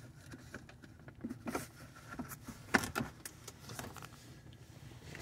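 Scattered plastic clicks and knocks from a pickup's centre console as its lid is handled and flipped open into a fold-out work surface. The loudest knock comes a little under three seconds in.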